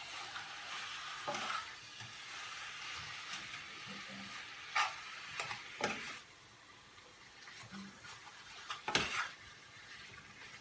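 Minced meat sizzling in an oiled frying pan as it is stirred and broken up, with a few sharp scrapes and knocks of the utensil against the pan. The sizzle drops a little about six seconds in.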